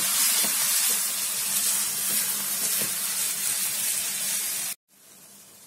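Chicken pieces frying over high heat in oil with onion and ginger-garlic paste, giving a steady, loud sizzle while being stirred in the pan. The sizzle cuts off suddenly near the end.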